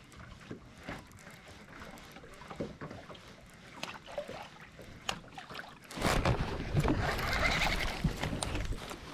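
Faint small ticks and knocks around a fishing boat, then from about six seconds in a sudden, much louder rustling rumble: hands handling a baitcasting rod and reel right next to the microphone.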